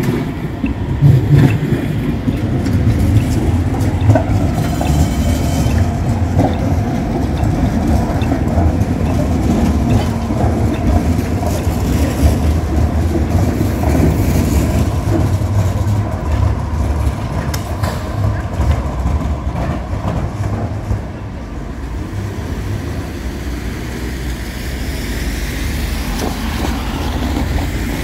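Articulated light-rail tram rolling past on street tracks: a steady low rumble of wheels and motors with city traffic around it. It eases off somewhat after about 21 seconds.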